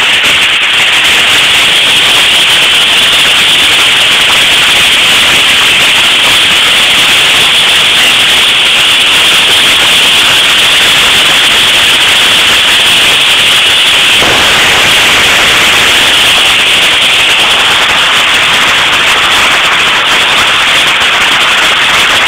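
Hail coming down hard: a loud, unbroken clatter of countless small impacts, growing fuller about two-thirds of the way through.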